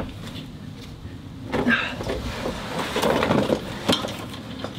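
Hands working the steel drag link and steering damper under a truck: a scrape about a second and a half in, rattling handling around three seconds, and a sharp metallic click near four seconds, over a steady low hum.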